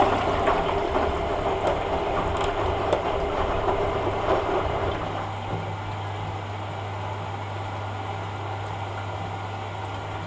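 Hoover A3786 Logic washing machine running a rinse. For about the first five seconds water sloshes with small clicks and knocks, then it settles to a steady low hum.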